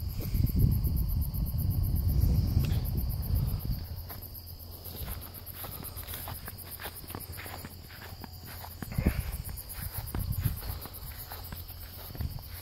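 Insects trilling steadily in a high, evenly pulsing chorus, over footsteps in sandals brushing through grass and garden plants. A low rumble fills the first few seconds.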